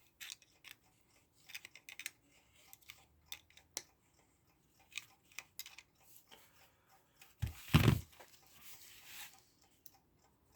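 Small clicks and taps of hands handling a small clock movement and its parts on a bench, with one louder knock a little before 8 seconds in, followed by a brief rustle.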